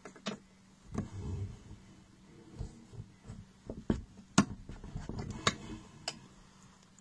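Homemade ammunition reloading press being worked by hand: a series of sharp metal clicks and clinks as parts are set into its stations, the loudest a little past the middle, with two short low whirs of its mechanism.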